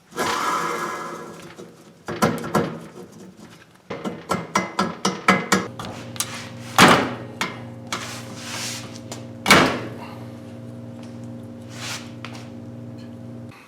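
Metal tools clanking and knocking on steel suspension parts, with a quick run of clicks and two heavy metal impacts. A steady low hum comes in about halfway through and cuts off near the end.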